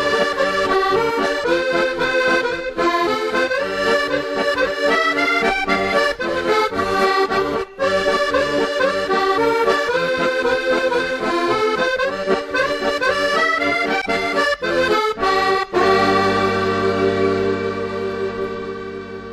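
Accordion playing a quick sea-shanty-style tune, which settles on one long held chord near the end and fades out.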